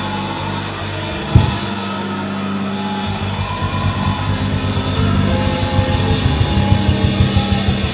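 Live church band playing an up-tempo praise break: sustained low chords under a drum kit, with one sharp loud hit about a second and a half in and fast, dense drumming from about three seconds in.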